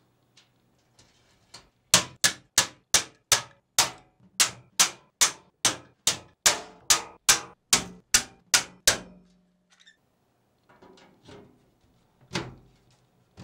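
Hand pop-rivet gun squeezed over and over, setting rivets into a sheet-metal PC case panel: a run of about eighteen sharp metallic clicks, two or three a second, starting about two seconds in and stopping near nine seconds. One more sharp knock comes near the end.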